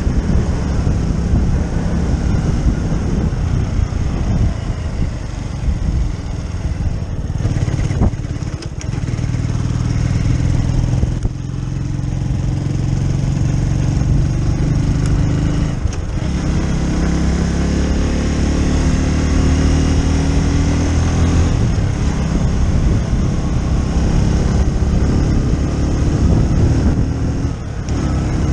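Keeway Superlight 125 motorcycle engine running on the move, its note climbing and then falling back several times as the bike accelerates and changes gear.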